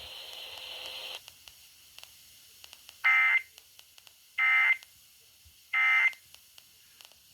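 Three short, identical bursts of Emergency Alert System digital data tones, sent about a second apart over FM radio: the end-of-message code that closes the alert. A faint steady hiss stops about a second in, before the bursts.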